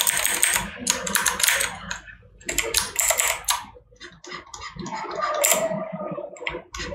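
Computer keyboard and mouse in use: bursts of clicking and rubbing, several times with short pauses in between.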